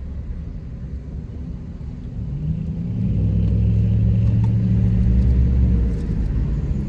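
Car engine and road rumble while driving. About two seconds in, the engine climbs in pitch and gets louder as the car accelerates; it holds for a few seconds and then eases off near the end.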